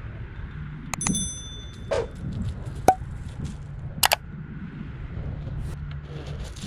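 Overlay sound effects of a subscribe-button animation: a bell ding about a second in, then several sharp mouse-style clicks, over a steady low wind rumble.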